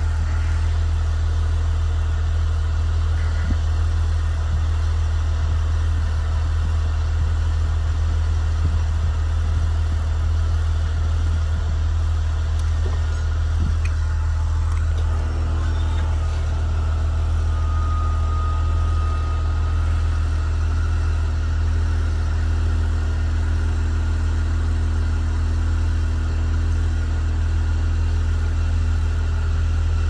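Blue Bird Vision school bus engine idling with a steady low drone. From about halfway, the Braun Millennium-series wheelchair lift's hydraulic pump joins with a steady hum as the lift is run.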